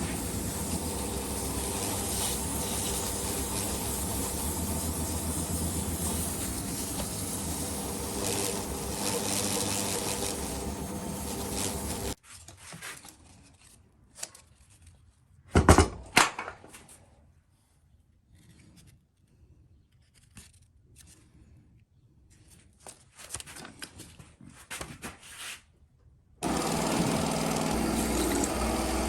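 A small electric motor runs steadily for about twelve seconds, stops, and starts again about four seconds before the end. In the gap come light handling clicks and a loud double knock.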